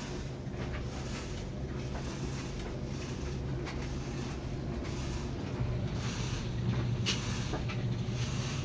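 GE stackable dryer running with a steady low hum and a grinding noise, broken by irregular scraping knocks about once a second; it gets a little louder about two thirds of the way through. The grinding is the fault the machine is being recorded for.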